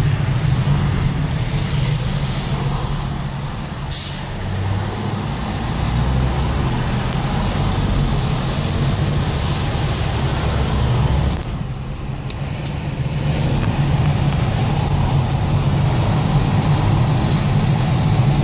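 Road traffic heard from inside a car: steady engine and road noise with a low hum, a bus close alongside. A brief hiss about four seconds in.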